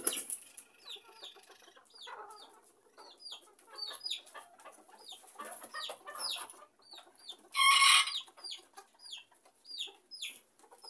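Bantam chickens clucking and calling, with a short high falling chirp repeated about twice a second and a brief harsh squawk about eight seconds in.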